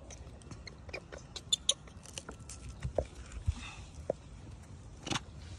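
Macaque handling a banana: scattered small clicks and soft rustles, with a sharper click near the end.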